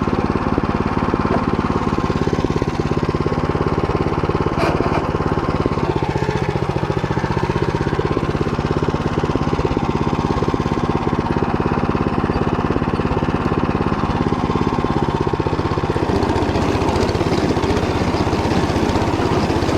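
Motoblock engine running steadily under load while its Motor Sich rotary cutter mills through stubble. The engine note shifts in pitch a couple of times as the load on the cutter changes.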